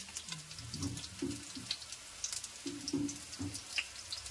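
Cooking oil crackling in a hot pan on the gas stove, a scatter of small irregular pops and spits, with faint voices in the background.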